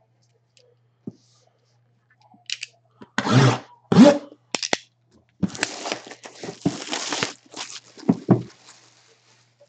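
Plastic shrink wrap on a cardboard box being slit with a blade and torn off, crinkling and rustling, with two sharp bursts of tearing a few seconds in and a pair of knocks near the end.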